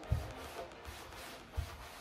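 Dark wax being rubbed over chalk-painted wood, a steady scrubbing hiss, with two dull knocks about a second and a half apart. Soft background music underneath.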